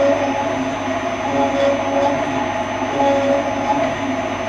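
Kearns horizontal boring and facing machine cutting the outside diameter of a stator housing with a single-point tool on its revolving facing head: a steady machine drone with a ringing chatter that swells and fades over and over. The chatter is what the operator means to adjust out.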